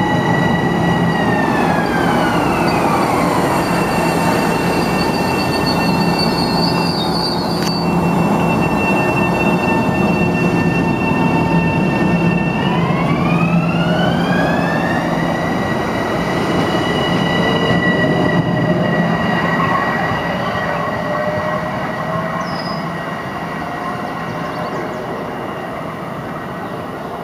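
Metro-North M7A electric multiple unit's traction whine. Its pitch slides down as the train slows, holds as a steady hum while it stands, then climbs again as it accelerates away and gradually fades. Midway through there is a brief hiss of air followed by a sharp click.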